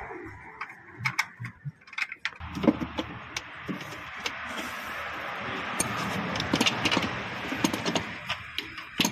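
Hand ratchet wrench clicking as the top nuts of a front shock-absorber strut mount are undone: scattered clicks at first, then about two seconds in a long run of fast, dense ratcheting with metallic rattles.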